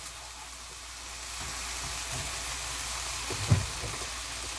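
Beef frying in perilla oil in a nonstick pan, a steady sizzle that grows louder about a second and a half in as oyster mushrooms go in, with a single knock a little after three seconds in.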